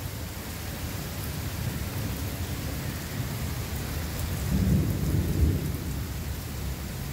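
Heavy rain pouring steadily, with a low rumble of thunder that swells about four and a half seconds in.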